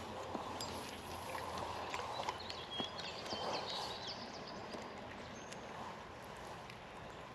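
Outdoor background noise, steady and fairly quiet, with a few faint high chirps and a brief whistle-like note near the middle, and scattered light clicks.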